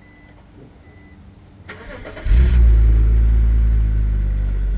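A BMW Z4's engine is cranked by its starter and catches about two seconds in. It then runs on at a steady idle.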